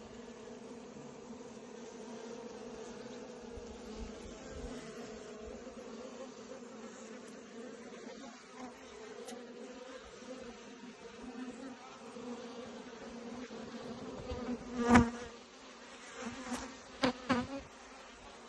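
Honeybees buzzing steadily in a low hum. A single bee buzzes loudly past close by about fifteen seconds in, and again in two quick passes near the end.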